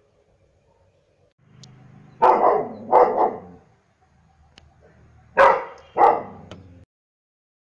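German shepherd barking: four barks in two pairs, the two barks of each pair about two-thirds of a second apart and the second pair about three seconds after the first. The sound stops abruptly shortly after the last bark.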